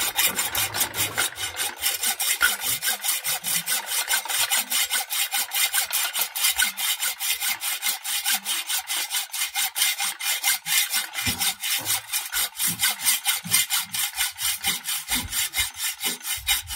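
Hand saw cutting metal in fast, even back-and-forth strokes, trimming an oversized nut down to size.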